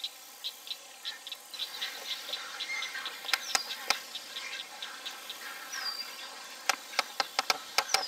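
Wading-bird nesting colony: many young birds make high, rapidly repeated begging chirps, with a short falling whistle twice. In the second half come a run of sharp clacks.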